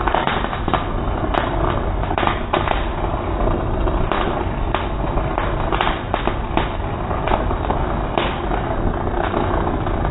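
Welding arc crackling and hissing steadily, with frequent irregular sharp pops.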